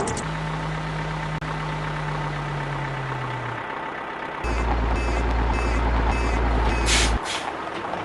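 Cartoon truck sound effects: an engine hum that sinks a little in pitch, then a heavier truck engine with reversing beeps about twice a second, ending in a short air-brake hiss.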